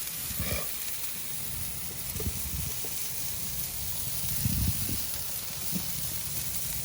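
Meat sizzling on a barbecue grill: a steady hiss, with a few soft low knocks.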